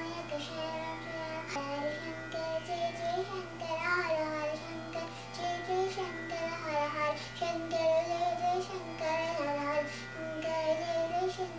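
A young girl singing a Carnatic devotional song solo, her voice moving through a continuous, ornamented melody over a steady low hum.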